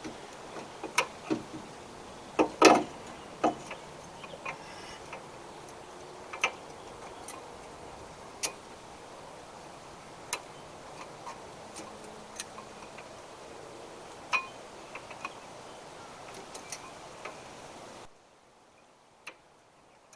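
Irregular sharp clicks and clinks of metal tools and brake parts being handled during a front brake pad and caliper job, the loudest a short cluster of knocks a few seconds in. They sound over a steady background hiss that cuts off abruptly near the end.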